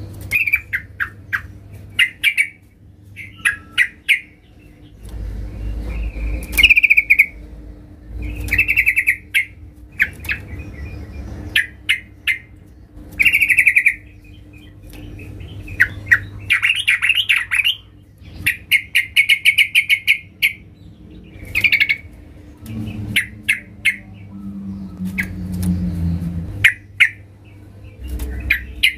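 Yellow-vented bulbul calling loudly in short, bubbly chattering phrases repeated again and again, with sharp clicks between them.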